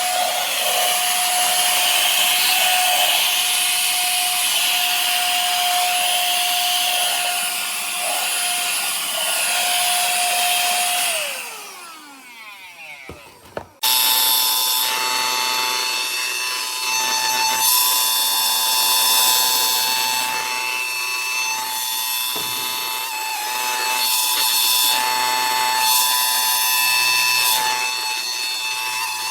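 Tiazhan handheld vacuum's small high-speed motor running with a steady whine, then switched off about 11 s in, its pitch sliding down as it spins down. About 14 s in it is switched back on and runs steadily again at a higher pitch.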